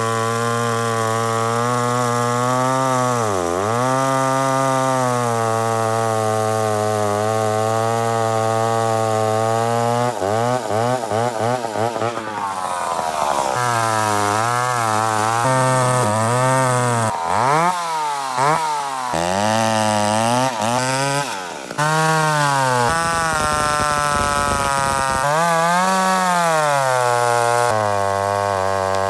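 Two-stroke chainsaw cutting hardwood (black locust) at full throttle. Its engine pitch sags as the chain loads up in the cut and climbs back as it frees, with a choppier stretch of rapid rises and drops midway.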